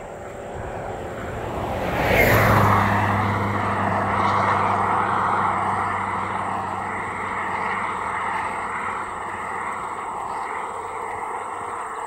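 A road vehicle passes close by about two seconds in, then runs on with a steady engine hum and tyre noise that fades slowly as it drives away.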